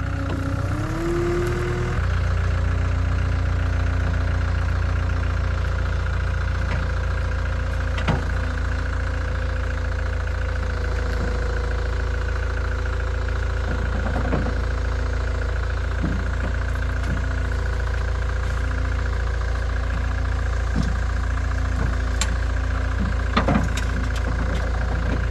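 Cat 252B skid steer's diesel engine running steadily; it revs up in the first couple of seconds, then holds. A few sharp knocks sound over it.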